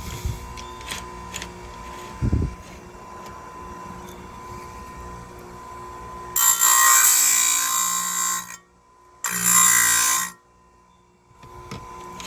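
Powerfist electric chainsaw chain sharpener grinding a chain tooth in two short runs: a grinding wheel on a motor with a hum under a bright hiss, first for about two seconds, then for about one second. Light clicks and a knock of handling come before the grinding.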